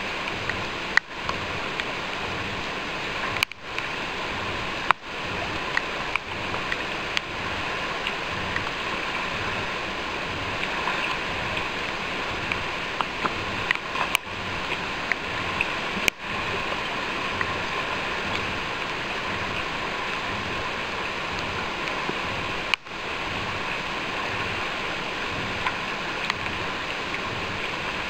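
Fast river water rushing steadily over rocks, with a few sharp clicks scattered through it.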